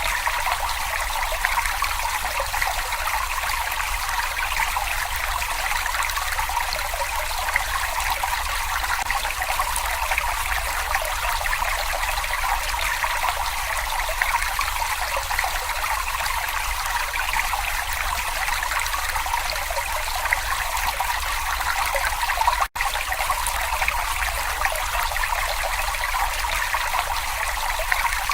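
A babbling brook: shallow water trickling and splashing steadily over stones, with one split-second dropout about three quarters of the way through.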